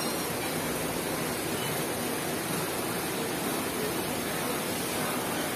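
Steady, even rushing hiss with no distinct tones or events.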